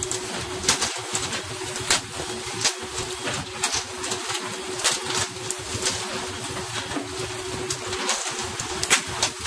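Tuna being flung one after another onto the deck of a pole-and-line fishing boat: sharp slaps and clatters, about one or two a second, over the rushing hiss of water spray along the hull and a steady hum from the boat.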